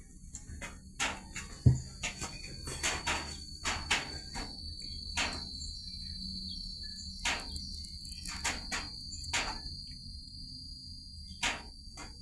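Steady high-pitched cricket chirring throughout, with scattered sharp clicks and taps and one heavy thump a little under two seconds in.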